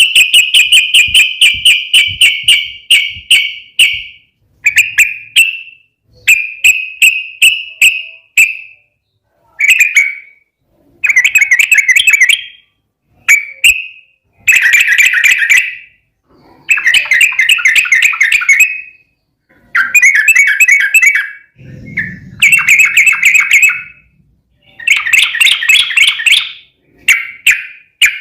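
Yellow-vented bulbul (trucukan) singing in loud bursts of rapid chattering notes. About a dozen phrases of one to two seconds each, with short pauses between them.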